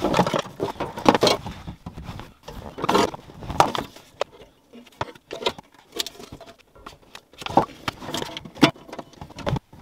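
Hands fitting a Toyota MR2 Spyder's stock ECU and plugging in its wiring-harness connectors: irregular rustling, scraping, knocks and small plastic clicks. The handling is busiest at first and again near the end, with a quieter stretch in the middle.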